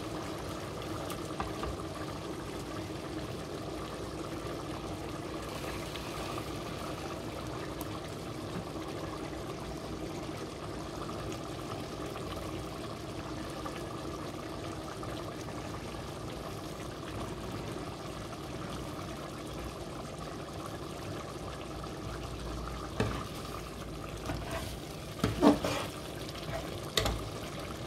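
Steady water-like rushing noise, with a few sharp clinks and knocks of crockery near the end.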